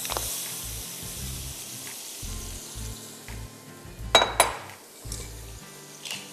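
Pieces of boiled meat tipped into a pan of hot oil and spice masala, sizzling steadily, loudest as they land at the start. A few sharp metal clinks about four seconds in, over faint background music.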